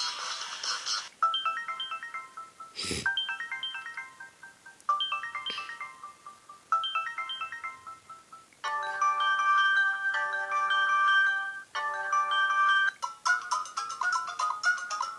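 Preset ringtones of a Samsung Galaxy Ace (GT-S5830) mobile phone played one after another: a short melodic chime phrase repeating several times, then a tune of held chords about nine seconds in, and another tune about thirteen seconds in. A single sharp knock about three seconds in.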